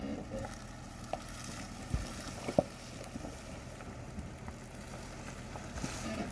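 Jeep Wrangler's 3.6-litre V6 running low and steady as it crawls over rocky ground, with a few short knocks and clunks from the tyres and chassis, the sharpest about two and a half seconds in.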